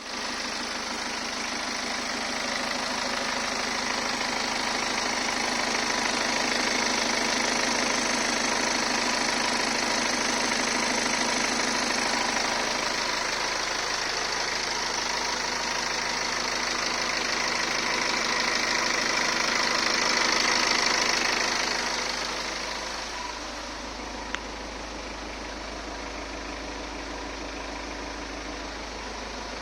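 BMW B47 2.0-litre four-cylinder diesel engine running with a rattling noise that the owner suspects may be the timing chain. The sound gets quieter about three-quarters of the way through, and there is a single sharp click soon after.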